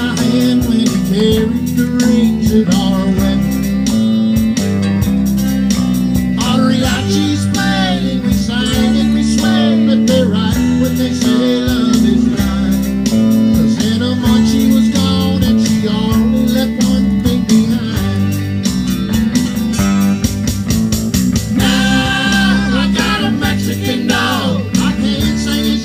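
A small live band playing a song: piano accordion, guitar and electric bass guitar, steady and loud.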